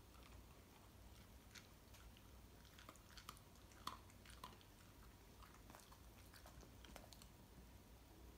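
Shiba Inu chewing dry kibble: a scatter of faint, irregular crunches, most of them between about three and seven seconds in.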